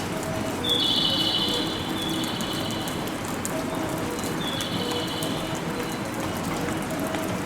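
Railway station platform ambience: a steady hiss of background noise with a short high electronic tone that repeats every second or two, over a faint lower two-note chime.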